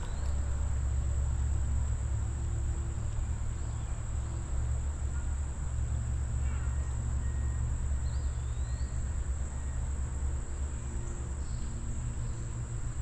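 Steady, unbroken high-pitched insect drone, over a continuous low rumble, with a few faint chirps.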